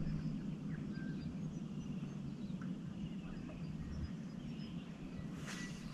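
Quiet outdoor ambience on still water: faint, scattered chirps and short calls of distant birds over a low, steady hum. A few soft knocks come near the end.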